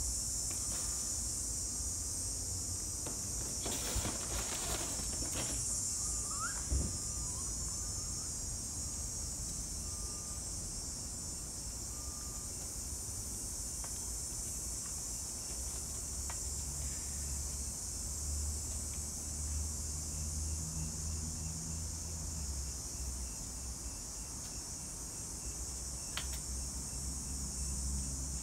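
Steady high-pitched chirring of crickets or other night insects, over a low background rumble, with a brief rustle about four seconds in.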